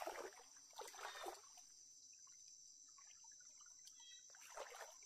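Near silence of a night forest, with a couple of soft footsteps in the first second or so and another near the end.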